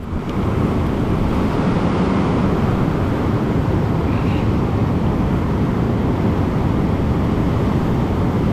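Whitewater rapids rushing close by, a loud, steady noise without a break.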